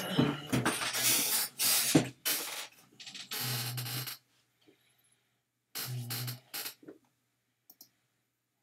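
A person breathing close to the microphone: a run of noisy breaths and exhales through the first four seconds, another breath about six seconds in, then two faint clicks near the end.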